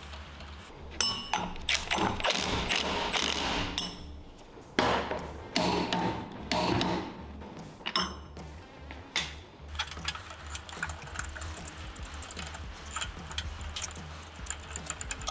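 Torque wrench with a 24mm socket ratcheting the flywheel nut down on a Predator 420cc engine, tightening it toward 83 ft-lb. The ratcheting comes in two long spells of dense clicking, followed by scattered clicks and knocks of tools and parts being handled.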